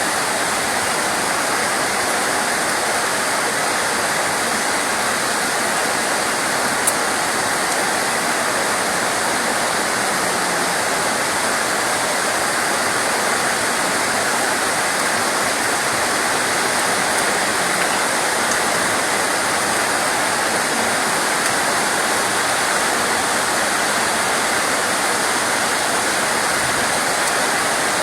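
Steady heavy rain, an even rushing hiss that does not let up, with a single brief tick about seven seconds in.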